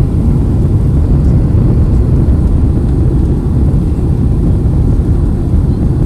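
Steady low rumble of engine and airflow noise inside the cabin of a Boeing 767 descending on approach with flaps extended.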